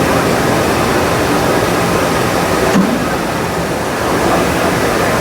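Steady, loud exhibition-hall din: an even rushing noise from machinery and ventilation, with no single distinct source.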